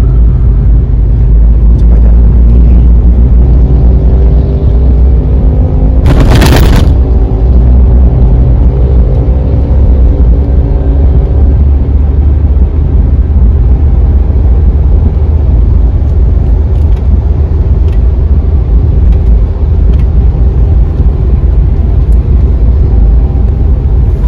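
Daihatsu Xenia driving, heard from inside the cabin: steady low engine and road rumble, with an engine note that shifts in pitch through the first ten seconds or so. A brief loud noise burst about six seconds in.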